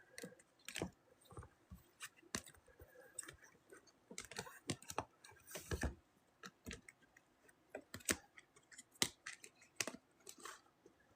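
Trading cards and their plastic holders being handled and stacked: faint scattered clicks and taps, with a short rustling slide a little before the middle.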